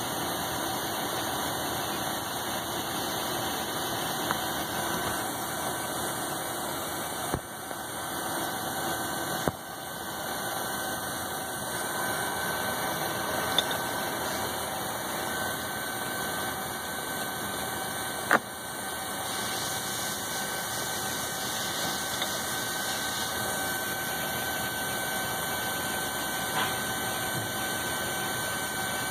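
Metal lathe running steadily while a boring bar cuts inside a spinning brass .280 Ackley Improved rifle case, boring it to an even wall thickness. A few sharp clicks sound over the hum, the loudest a little past halfway.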